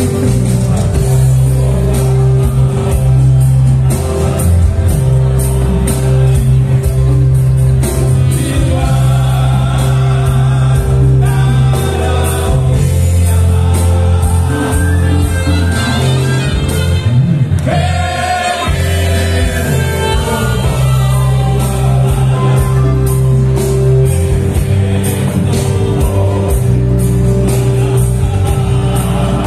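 Male vocal quartet singing together through microphones, backed by a live band with a steady bass line and regular percussion. The bass drops out briefly a little past halfway.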